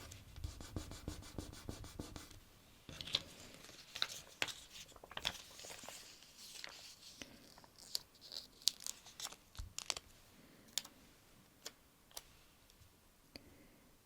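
Close-miked fingers handling a sticker book: a quick run of even scratching strokes on paper for the first two seconds or so, then crinkly peeling and smoothing of sticker paper. Scattered light taps and clicks follow near the end.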